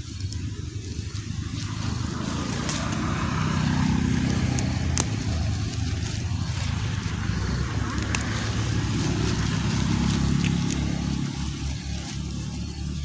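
A motor engine humming, growing louder and fading twice, with a few sharp snaps and rustling as water spinach stems are picked by hand.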